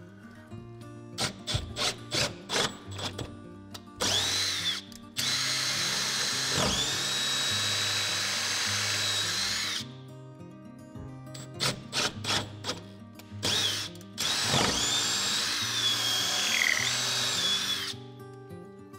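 Cordless drill with a long twist bit boring up into the wooden bottom of a boat hull: several short trigger bursts, then a steady run of about five seconds with a high whine, more short bursts, and a second steady run of about three and a half seconds.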